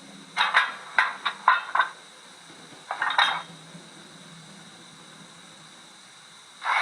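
A quick run of short metallic clinks, about six in just over a second, then one more clink about a second later.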